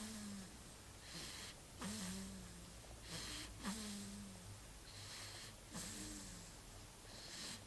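Snoring in slow, even cycles about every two seconds: each breath is a hiss followed by a short, low, tone-like snore that falls slightly in pitch, about four times.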